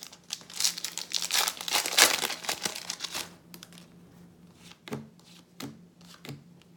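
Foil wrapper of a baseball-card pack being torn open and crinkled, a dense crackle lasting about three seconds, followed by a few soft clicks as the cards are handled.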